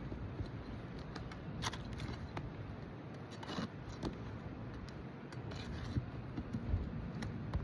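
Irregular scraping and crackling with light clicks from hand work on asphalt roof shingles, the shingles being lifted and pried during a repair attempt.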